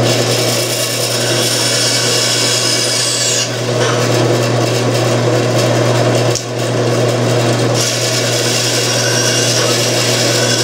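Bandsaw running with a steady motor hum while its blade cuts through a wooden board along a curve. The hiss of the cut is strong for the first few seconds, eases off, and picks up again for the last few seconds.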